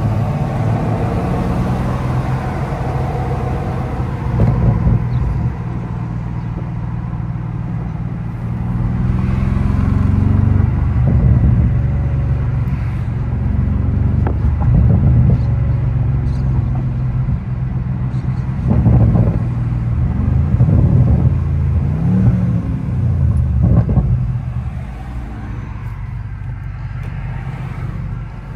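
Twin-turbo V8 of a 2021 BMW M550i with its muffler deleted and two resonators fitted, heard from inside the cabin while driving: a steady low exhaust drone that rises and falls in revs several times as the car accelerates and shifts.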